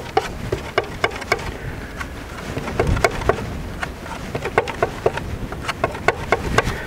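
Palette knife tapping and scraping on a palette while mixing paint: a run of quick, irregular clicks, several a second.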